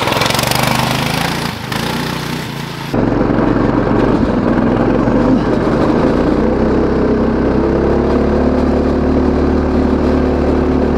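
Go kart's Predator 212cc single-cylinder engine running steadily at high revs, held at about 4,400 rpm before the nitrous is triggered. For the first three seconds it is heard under a hiss, then the sound cuts abruptly to a close, even engine note.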